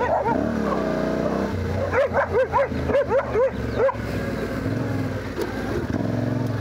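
A dog barking in a quick run of about seven sharp barks starting about two seconds in, over the steady low running of a Yamaha Ténéré 700's parallel-twin engine at slow riding speed.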